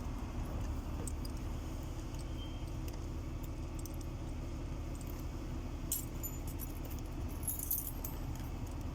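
Lock-picking tools working in a door lock: faint metallic clicks and jingles, a little busier about two-thirds of the way in, over a steady low rumble.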